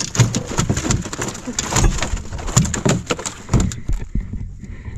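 A quick, irregular run of knocks and thumps on a small outrigger boat, stopping about four seconds in.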